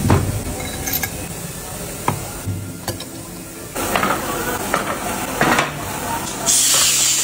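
Heavy metal mould plates knocking and scraping as a tennis-ball mould is closed and slid into a press stack, with about half a dozen sharp knocks. A loud hiss sets in near the end.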